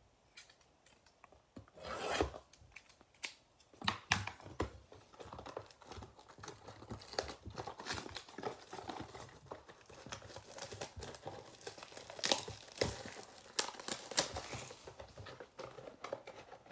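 Wrapping being torn and crinkled off a cardboard trading-card blaster box, with irregular rustles and crackles as the box is opened by hand. Louder bursts come about two and four seconds in.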